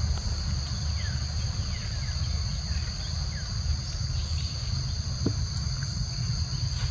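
Steady high drone of insects in two continuous high tones, over a steady low rumble. A few short falling chirps come in the first few seconds, and a single click sounds about five seconds in.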